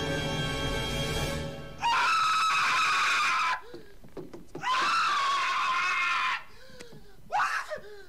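Film score music, then a man screaming in terror at a tarantula on his face. There are two long, high screams, the first starting about two seconds in and the second about a second after it ends, with short cries near the end.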